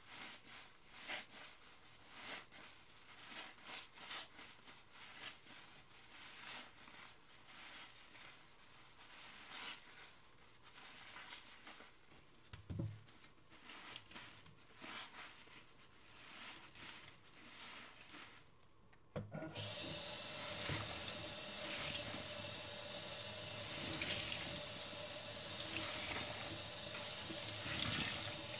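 Soapy, foam-laden sponges squeezed and scrubbed by gloved hands, giving soft, irregular wet squelches and crackling foam. About two-thirds of the way through, the sink tap is turned on and water runs steadily onto the sponge in the stainless-steel sink, rinsing it.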